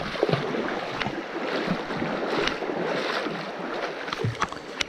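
Shallow creek water running and splashing around feet wading in it, a steady rushing wash with a few light knocks.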